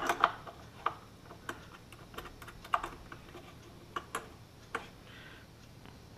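Irregular small clicks and taps of hands working small metal fittings and the panel inside a wooden gauge box, about a dozen over several seconds, the loudest right at the start, with a brief faint scrape near the end.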